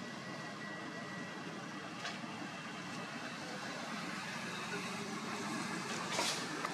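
Steady outdoor background hiss and rumble, with a short scratchy rustle about six seconds in.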